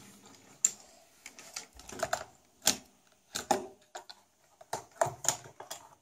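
Irregular clicks and clacks as a die-cast Hot Wheels toy car is set down and pushed onto the plastic ramp of a Shark Escape playset, metal and plastic knocking on plastic.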